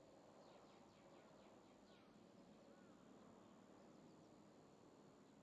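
Near silence: faint outdoor ambience with a few distant bird chirps.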